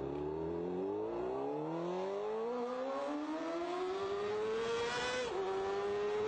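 Motorcycle engine accelerating, its pitch climbing steadily for about five seconds, then dropping briefly with a gear change and climbing again.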